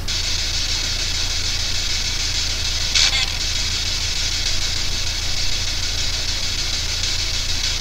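P-SB7 spirit box (ghost box) hissing with steady radio static over a low mains hum, with one short higher blip about three seconds in.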